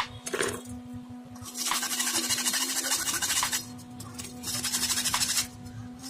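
Knife blade scraping into the wall of a terracotta clay pot, a gritty rasping in two long spells, the second shorter, as a cross-shaped hole is scored into it.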